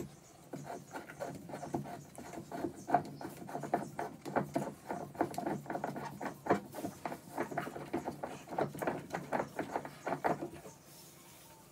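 Spin-on fuel water separator filter being unscrewed by hand from its head: a rapid, irregular run of rubbing and scraping as the palms grip and twist the metal canister, stopping about a second before the end.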